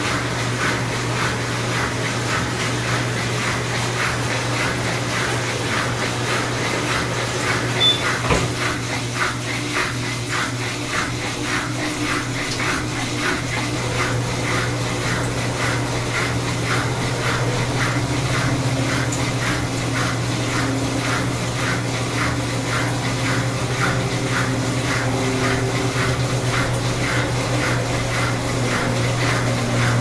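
Electrolux Direct Drive top-loading washing machine spinning its tub in the drain-and-spin phase: a steady motor hum with an even swishing rhythm of about two strokes a second, and faint tones that climb as the spin speeds up. A single knock about 8 seconds in.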